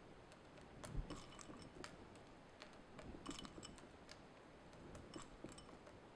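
Faint, scattered light clicks and taps of chopped dark chocolate pieces being picked by hand from a ceramic bowl and dropped onto toffee on a metal baking sheet. The firmest tap comes about a second in, and a quick cluster of clicks a little after three seconds.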